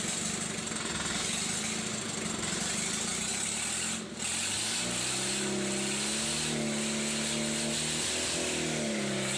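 Mitsubishi 4DR5 four-cylinder diesel engine running on the workshop floor with a steady clatter. About four seconds in the sound briefly dips, then a pitched hum that rises and falls runs over the clatter.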